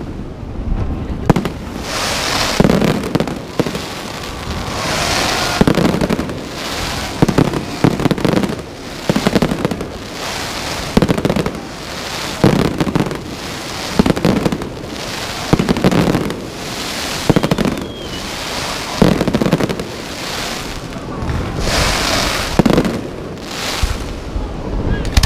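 Fireworks display: aerial shells bursting in a steady series, about one bang a second, each followed by a crackling, echoing tail.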